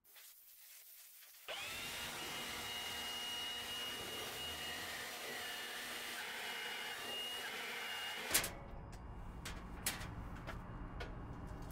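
Milwaukee Fuel cordless leaf blower spinning up with a rising whine about a second and a half in, then blowing steadily into the generator's alternator head to clean dirt out of it. It cuts off about eight seconds in and is followed by a sharp knock and a few clicks.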